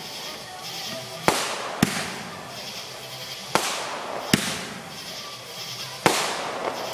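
Aerial fireworks going off one after another: five sharp bangs, coming roughly in pairs, with a fizzing crackle between them.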